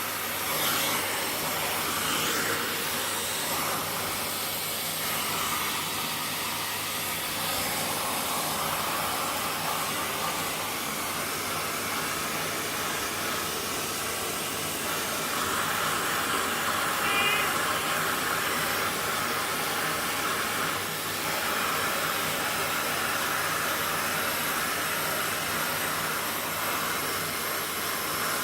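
Household vacuum cleaner running steadily while its nozzle is drawn over a cat's fur. The suction note shifts in pitch and strength now and then, most noticeably from about fifteen to twenty-one seconds in.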